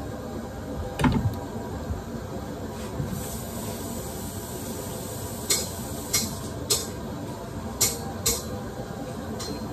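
Handling noises at a fish-cleaning table and sink: a heavy knock about a second in, a hiss for a couple of seconds, then a handful of sharp clicks and knocks at uneven intervals.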